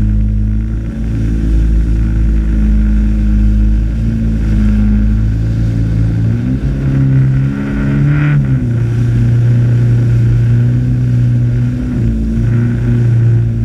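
Jet ski engine running steadily under way, its pitch shifting about halfway through as the throttle changes, over a heavy low rumble.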